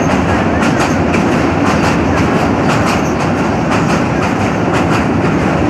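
Train running along the track, wheels clattering over the rails: a steady rumble with quick, irregular clicks several times a second.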